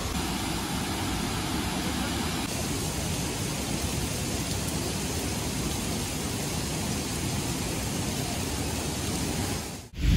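Steady rush of falling water, an even hiss with no pitch, changing slightly in tone about two and a half seconds in and dropping away just before the end.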